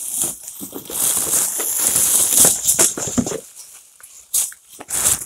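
Loud rustling and crinkling as things are handled right up against the microphone, strongest from about one second in to past the three-second mark, followed by a few light knocks.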